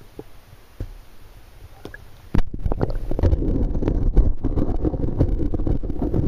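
A camera going under the surface of a shallow, rocky river about two seconds in. Faint handling knocks above water give way suddenly to the loud, muffled low rumble of flowing river water heard from underwater, with many short crackles.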